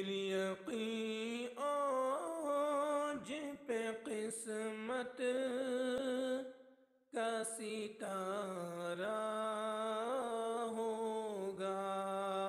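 A solo voice singing devotional vocal music, a naat, in long held notes that waver and slide without clear words. There is a short break about halfway through.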